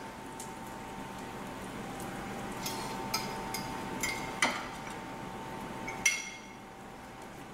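Light clinks against a glass dish as breadcrumbs are mixed in it, about six between three and six seconds in, the loudest about four and a half seconds in, over a faint steady background hum.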